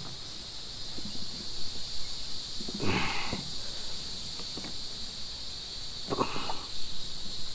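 Steady high-pitched drone of insects, with two brief rustling noises about three and six seconds in.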